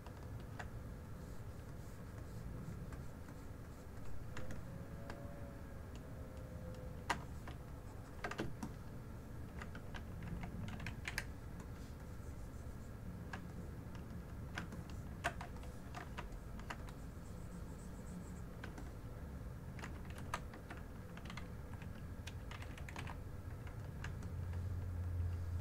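Computer keyboard keys and mouse buttons clicking now and then, scattered single clicks over a low steady hum.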